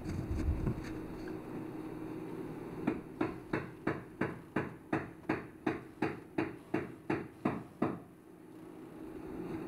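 Quick light taps, about three a second for some five seconds, driving a braided graphite packing ring up into the stuffing box around a steam engine's valve rod.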